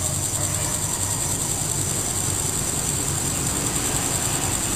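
Diesel train engine running with a steady low rumble, under a constant high-pitched whine.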